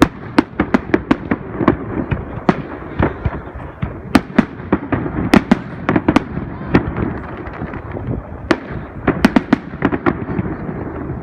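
Fireworks display: a dense, irregular run of sharp bangs from bursting shells, some in quick clusters, over a steady background din.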